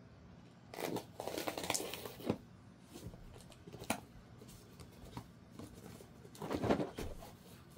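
Handling noises: two spells of rustling and scraping, one starting about a second in and another near the end, with a few sharp clicks between them.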